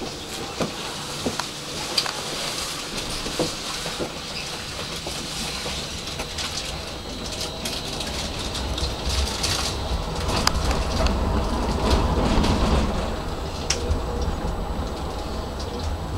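Tram running on street track, heard from inside at the front of the car. There are scattered sharp clicks and knocks over the first few seconds, then a low running rumble that grows louder from about halfway through as the tram gathers speed.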